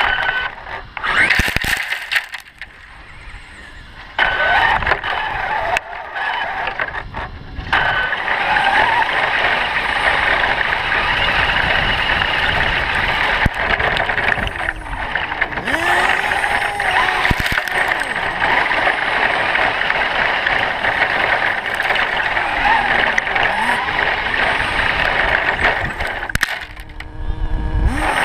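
Traxxas E-Maxx electric RC monster trucks running, their motors and gearing whining up and down in pitch with the throttle over a steady hiss of tyre and ground noise. The sound drops away briefly about two seconds in, then comes back strongly from about four seconds and runs on.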